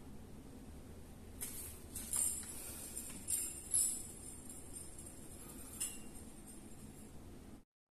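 Marbles clicking and rattling as they roll down a marble run of plastic blocks, with a cluster of bright tinkling clicks in the first half and one more a little later. The sound cuts off suddenly near the end.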